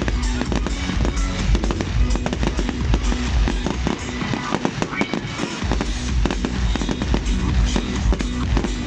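Fireworks display going off in rapid, dense bangs and crackles over music played on loudspeakers. The deep bass of the music drops out briefly about four seconds in.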